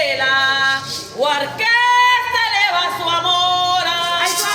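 A woman singing a sirena, the unaccompanied sung verse of the Venezuelan San Juan festivities, in long wavering held notes with slides in pitch. There is a short breath about a second in.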